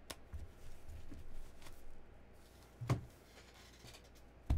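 Rigid plastic toploader card holders being handled on a desk mat: a light click at the start, a knock about three seconds in and a louder knock near the end.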